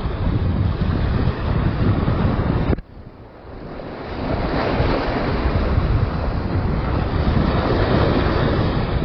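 Wind buffeting the microphone over the wash of surf against a rock break wall. The noise cuts out abruptly about three seconds in and swells back over the next second or two.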